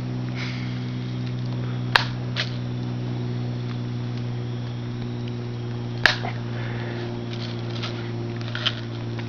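Multi-pump BB gun being pumped: two sharp clicks about four seconds apart, each followed by a softer click, and a few lighter ticks near the end as the pump lever is worked. A steady low hum underlies it all.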